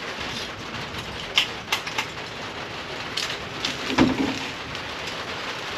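Parts and packing being handled in a cardboard box: scattered clicks and knocks, with a louder thump about four seconds in, over a steady hiss of rain.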